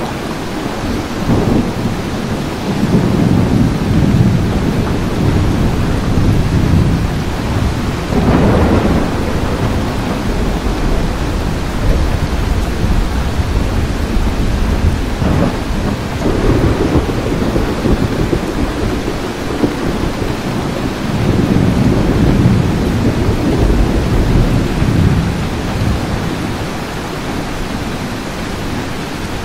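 Steady rain with rolling thunder that swells and fades several times, a long rumble a couple of seconds in, another around eight seconds, and more past the fifteen- and twenty-second marks.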